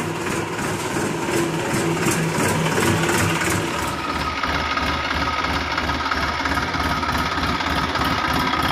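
Massey Ferguson 245 DI tractor's three-cylinder diesel engine idling steadily. About four seconds in, the sound shifts to a second tractor idling with a deeper, pulsing note.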